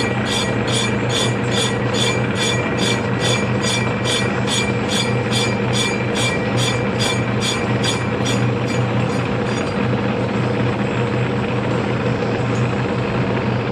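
CD6245B metal lathe running steadily with a cast flywheel spinning in the chuck, a constant machine hum. A regular ticking about three times a second runs over the hum and stops about nine seconds in.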